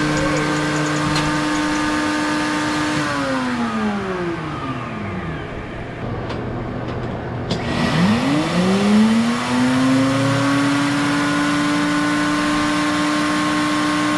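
Router mounted in a router table, its motor running at a steady high speed, then switched off and winding down over about three seconds. After a few sharp clicks it is switched on again and winds back up to full speed.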